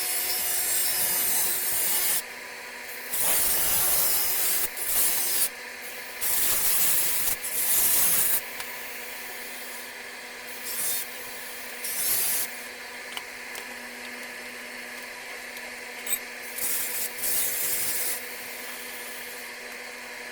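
Angle grinder cutting through a steel water pipe in short, harsh bursts of a second or two each, the loudest bursts in the first half, with the disc running more quietly between cuts.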